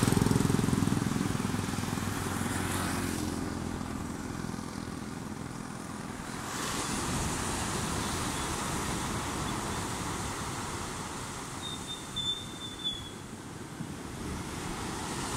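A motor vehicle's engine running and fading away over the first few seconds, followed by a steady rushing noise, with a brief high chirp about twelve seconds in.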